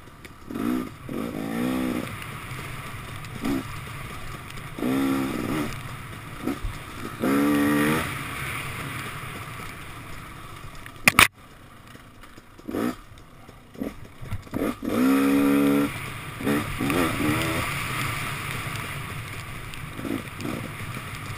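2014 KTM 250 XC-W two-stroke dirt bike engine revving up in repeated short bursts of throttle and dropping back between them. One sharp knock about eleven seconds in.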